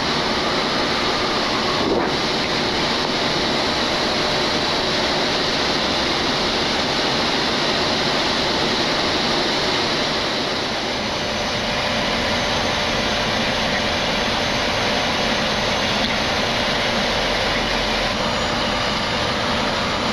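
Steady rushing noise of airflow and jet engines on an airliner flight deck in flight, even throughout with a faint steady hum under it.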